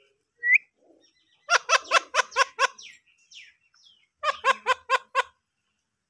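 Alexandrine parakeet calling: a short rising whistle, then two runs of rapid repeated harsh calls, about six notes each, at about five a second.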